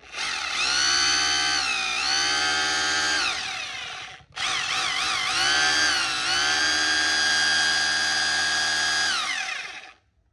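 Bosch GBH 2-24DSE rotary hammer running free in chisel mode with no bit, its motor whine dipping and rising as the trigger is eased and squeezed. It is let off for a moment about four seconds in, then runs again for about six seconds before stopping.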